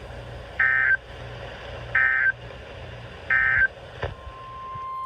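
Three short bursts of warbling SAME digital data tones, about a second and a half apart: the end-of-message (NNNN) signal that closes a NOAA Weather Radio emergency alert. A click follows about four seconds in, then a steady single-pitch alert tone fades in near the end, the weather radio's 1050 Hz attention signal.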